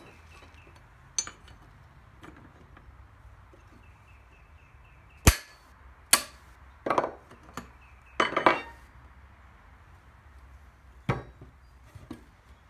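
Steel wrenches clanking and clinking against the nut and cast housing of a Cub Cadet steering box as a nut is tightened down: a series of sharp metallic knocks, the loudest about five seconds in and a cluster around seven to eight seconds.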